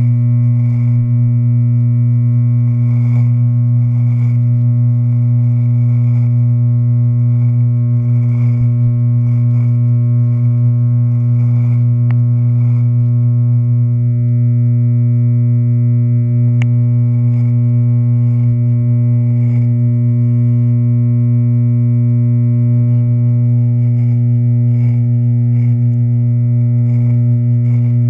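Wahl electric hair clippers running with a loud, steady low buzz, heard right at the clipper body. Faint short rasps come every second or so as the blade cuts through beard hair.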